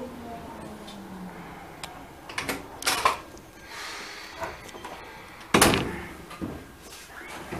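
Sliding doors of an Enshu Railway 1000-series commuter train working during a station stop: scattered clunks and clicks, a short hiss of air about four seconds in, and one loud slam about five and a half seconds in.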